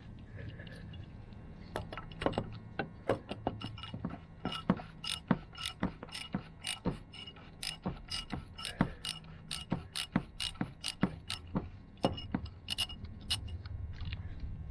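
Socket ratchet clicking as it is worked back and forth, about two or three clicks a second, loosening the plastic oil filter cap on the Jeep's 3.6L engine with a 24 mm socket.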